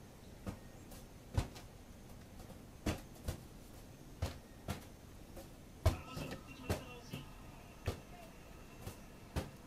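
A hand batting a rubber balloon up into the air, a dull tap about once a second, roughly eleven in all.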